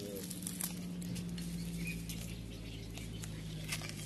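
Kitten lapping milk from a bowl: a few soft wet clicks over a steady low hum.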